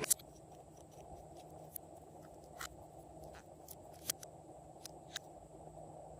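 Slime being squished and worked by hand, giving scattered small sticky clicks and pops, the sharpest right at the start and another about four seconds in.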